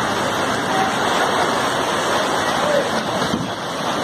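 Muddy floodwater rushing past in a fast, steady torrent.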